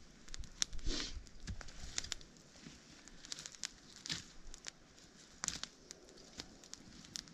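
Small campfire of dry twigs and brush crackling with frequent irregular sharp pops, mixed with the rustle and snap of sticks being pushed into it.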